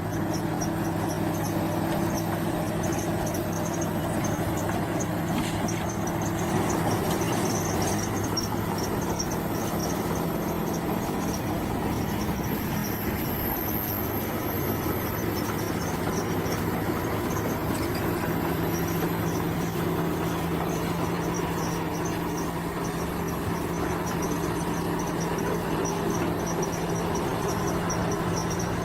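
Bulldozer's diesel engine running steadily at a constant note, its pitch shifting slightly a little past halfway, with a high, rapidly pulsing chirp over it.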